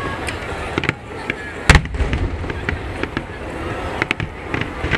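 Aerial fireworks shells bursting: scattered sharp cracks and bangs, with one loud, deep boom about a second and a half in.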